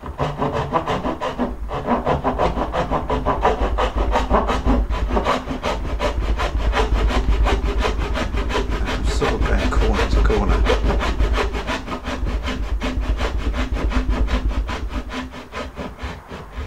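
Small backsaw (gentleman's saw) cutting down into the end grain of a wooden board, in steady, even back-and-forth strokes: hand-sawing a dovetail joint.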